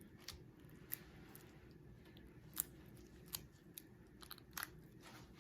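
Slime putty squeezed and pressed by hand, giving faint, irregular wet clicks and pops.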